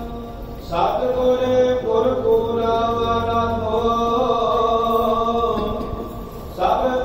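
Sikh devotional hymn singing (kirtan): a voice chanting long, held phrases over a steady sustained note, with a new phrase starting about a second in and another near the end.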